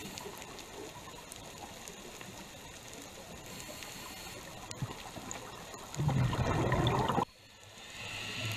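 Underwater sound on a scuba dive: a steady hiss with scattered small clicks, then about six seconds in a loud burst of exhaled regulator bubbles lasting just over a second and cutting off suddenly.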